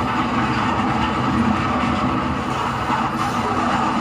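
HO scale model coal train of hopper cars running steadily along the track.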